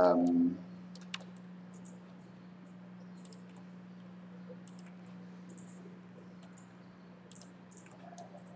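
Faint, scattered clicks of a computer mouse and keyboard, often two close together, over a steady low electrical hum. A brief vocal sound comes at the very start.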